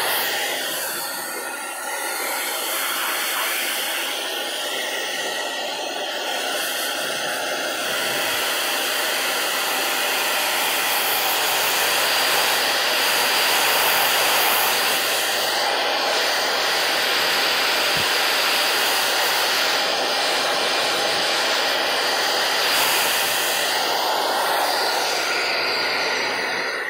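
Hand-held hair dryer running, a steady rush of air with a thin high whine, swelling a little louder around the middle as it is held closer.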